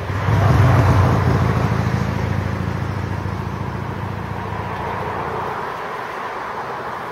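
A motor engine running nearby with a low pulsing hum; it starts loud and slowly fades away.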